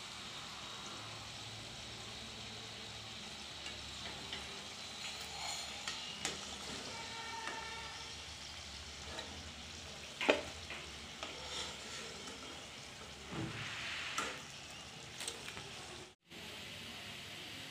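Samosas deep-frying in hot oil in a kadai: a steady sizzling hiss with scattered small crackles. A slotted metal spoon knocks sharply against the pan about ten seconds in, with a few lighter knocks later as the pieces are turned and lifted. The sound drops out for a moment near the end.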